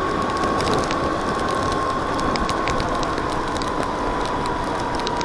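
Landmoto electric motorcycle riding on a wet street, its motor whining steadily and sinking slightly in pitch as it slows, over wind and tyre noise with scattered light ticks.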